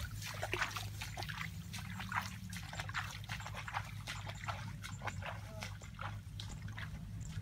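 Footsteps swishing and squelching through tall, wet grass in a waterlogged field: a run of irregular short rustles and splashy crackles, over a steady low hum.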